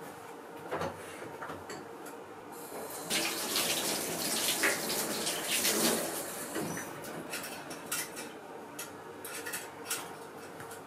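Kitchen tap running into a stainless steel sink for about four seconds as hands are washed under it, starting a little over two seconds in and trailing off. Small knocks and clatters come before and after.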